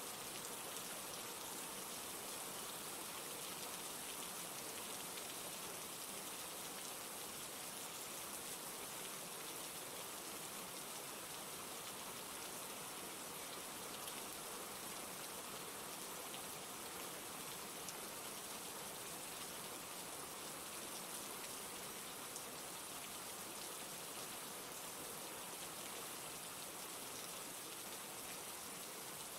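Steady rainfall with a dense patter of raindrops.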